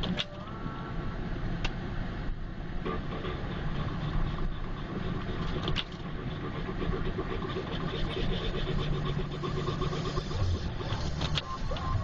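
Car driving on snow-covered roads, heard from inside the cabin: steady engine and road rumble, with a few sharp clicks.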